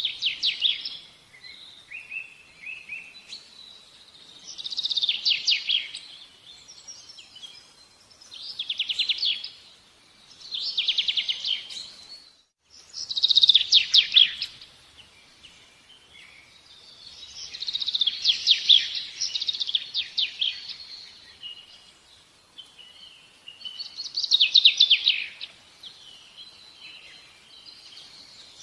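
Songbird singing: high, rapidly trilled phrases of a second or two each, repeated every two or three seconds, with a brief break about twelve seconds in.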